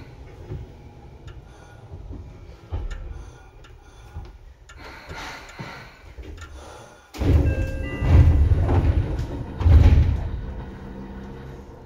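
Seibu 2000 series commuter train standing at a station, inside the car: light clatter and knocks, then about seven seconds in a sudden loud low rumble with heavy thumps and a brief chime, as the sliding doors work.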